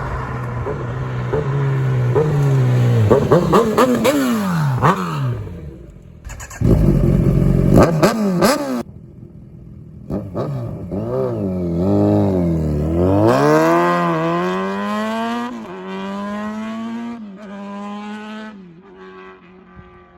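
Kawasaki Ninja 1000SX inline-four engine through a Lextek SP11C carbon and stainless slip-on silencer with its baffle in, revving and accelerating, its pitch climbing and dropping several times before settling and fading near the end.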